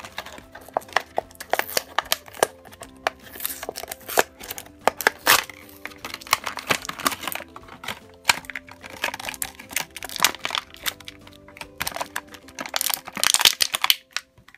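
Clear plastic blister packaging crackling and crinkling as it is pulled and pried open by hand, with sharp cracks that come thickest near the end. Light background music plays underneath.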